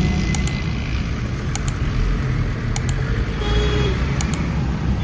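A car running in traffic, heard from inside the cabin: a steady low engine and road rumble. Faint paired clicks repeat about every second and a quarter.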